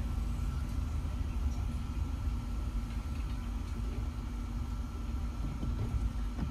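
Motor vehicle running: a steady low engine rumble with a constant hum.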